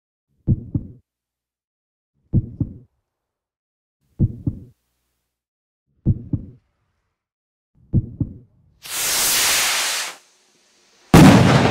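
Heartbeat sound effect: slow low double thumps, five of them about two seconds apart. Then a rushing noise swells up and cuts off suddenly, and a loud hit with a fading tail lands near the end.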